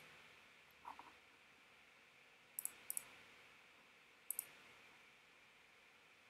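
Near silence broken by faint computer mouse-button clicks: three quick pairs of clicks, at about two and a half, three and four and a half seconds in.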